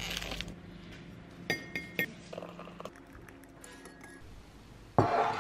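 Teaspoon clinking against a ceramic mug while tea is stirred: two ringing clinks about half a second apart, then a few lighter taps. A sudden louder burst of noise comes near the end.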